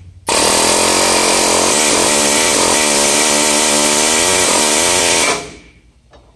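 Pneumatic air hammer with a flat punch, running in one continuous burst of about five seconds, then stopping. It is trying to drive out a seized, rusted retainer pin on a tractor's top link pivot bracket, and the pin does not budge.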